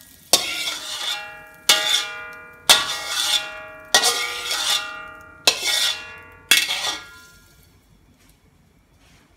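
Metal spatula knocking and scraping against an empty steel wok: six sharp strikes, each leaving the wok ringing with a fading metallic tone. The strikes stop about seven seconds in.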